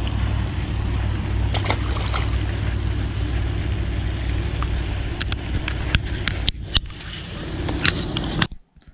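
Steady low rumble with a hiss of outdoor noise over it, broken by a few sharp clicks; it cuts off abruptly near the end.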